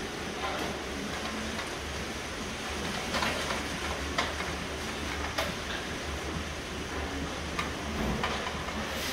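Dairy barn ambience: a steady low hum and hiss, broken by several sharp metallic clacks as Holstein cows feed with their heads through a metal headlock feed barrier.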